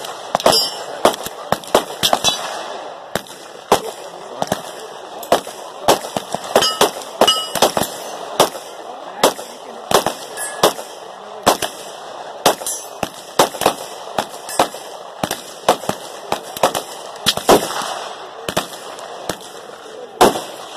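Irregular gunfire from several firearms on a shooting line, sharp cracks coming about two a second at varying loudness. Among them are shots from a customised Glock pistol.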